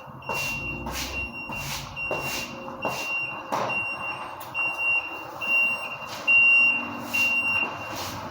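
Delivery box truck's reversing alarm beeping at an even pace, roughly one beep every three-quarters of a second, over the truck's running engine; the beeping stops near the end.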